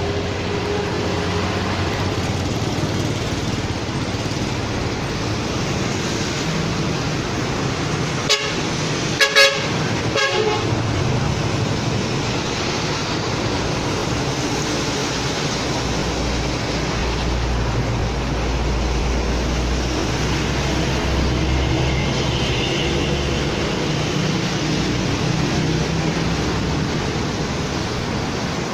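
Road traffic running steadily, with a vehicle horn tooting briefly about eight seconds in and twice more a second later. A low engine rumble swells and fades in the middle of the stretch.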